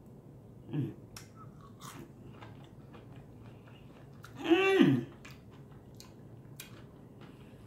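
A person chewing a bite of battered fried pickle chip close to the microphone, with scattered soft crisp clicks. Partway through she hums a drawn-out 'mmm' that falls in pitch at the end.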